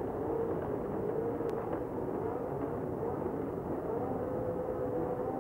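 A grid of 1973 Formula One cars, mostly Cosworth DFV V8s, revving while waiting for the start. Several engines are blipped at once, so their pitches rise and fall over one another.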